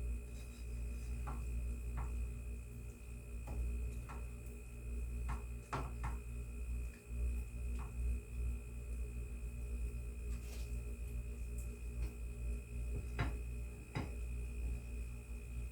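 A steady low hum with a thin high tone over it. Scattered light clicks and taps, like a utensil against a pan as frozen stir-fry vegetables are stirred, with two sharper taps near the end.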